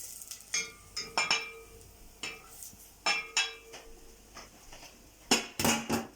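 Metal cooking utensils and cookware clinking and knocking, about a dozen sharp ringing strikes at irregular intervals. The loudest cluster comes near the end.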